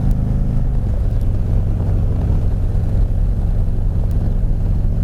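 Harley-Davidson V-twin motorcycle engine running at highway cruise; its note drops in pitch a little under a second in, then holds steady.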